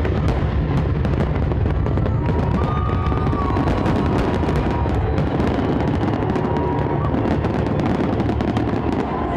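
Dense barrage of professional display fireworks: continuous rumbling bursts with rapid crackling throughout.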